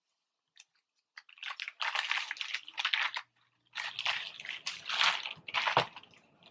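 Crunchy, squishy handling noises in two stretches of about two seconds each, as a breaded fried chicken sandwich is worked in spicy sauce.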